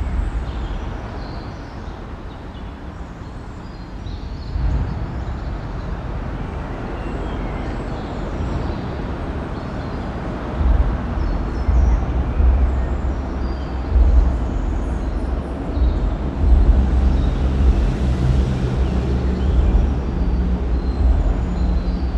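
Ring road traffic crossing a bridge, heard from underneath: a continuous wash of tyre and engine noise with a deep low rumble that swells and surges as vehicles pass overhead. The rumble grows heavier from about ten seconds in, and a steady low engine hum joins near the end.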